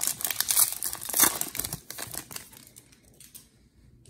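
Foil wrapper of a Donruss football card pack crinkling as it is torn open and peeled back, loudest about a second in. It then dies away to faint rustles as the cards are handled.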